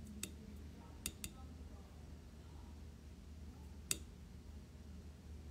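Quiet room with a low steady hum, broken by four short sharp clicks, the loudest about four seconds in.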